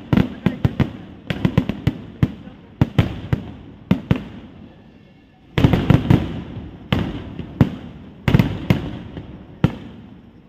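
Kerala festival fireworks (vedikkettu) going off: quick clusters of sharp bangs, one after another. A short lull about halfway through, then the bangs start again louder.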